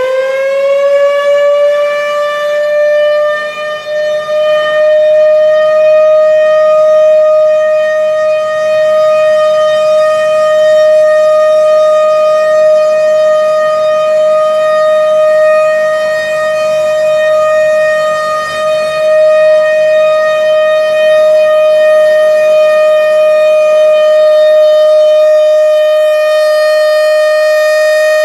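Model 1000A rotating outdoor warning siren sounding a steady tone: it finishes winding up in the first second or so, then holds one even pitch. Its loudness slowly swells and dips as the horn turns.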